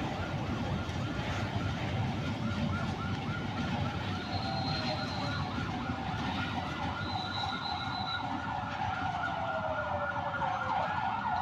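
Empty fuel tank wagons of a freight train rolling past slowly: a steady rumble of wheels on the rails with high, wavering squeals from the wheels. Near the end one squeal slides down in pitch.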